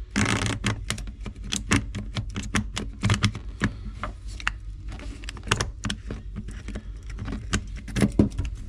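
Irregular metallic clicks and rattles of small parts being handled in the opened gear head of a power tool, whose gear is worn.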